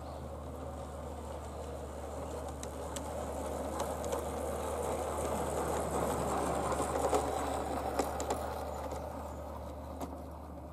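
Bachmann G scale Peter Witt model streetcar running along garden railway track: the whirr of its electric motor and wheels grows louder as it passes close and then fades away, with occasional sharp clicks from the wheels on the track.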